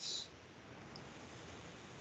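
Quiet room tone: a faint steady hiss, with a brief soft hiss right at the start.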